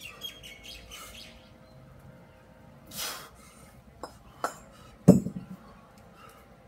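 A pair of 24 kg kettlebells set down on a concrete path, landing with one heavy clunk and a brief ring about five seconds in, after two lighter clicks shortly before.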